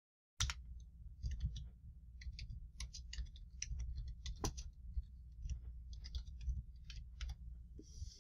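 Computer keyboard keys clicking in an irregular run of keystrokes as text is typed, starting about half a second in, over a steady low hum.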